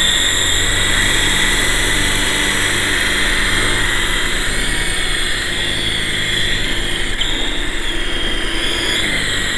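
GT Model QS8006 remote-control helicopter running, its electric motors giving a steady high whine over the whir of its spinning coaxial rotors.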